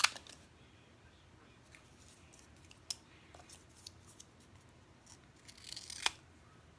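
Scissors cutting a small square of brown cardboard. A sharp snip comes at the start, then a few faint clicks, then a longer cut that ends in a crisp snip about six seconds in.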